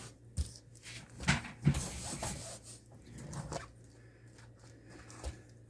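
Several separate knocks and clicks with a short rustle of handling, from plastic RC truck parts being fitted and set down, over a steady low electrical hum.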